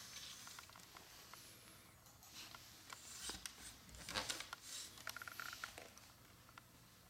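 Faint rustling and crinkling with scattered small clicks and taps, busiest in the middle, like light handling of paper or craft materials.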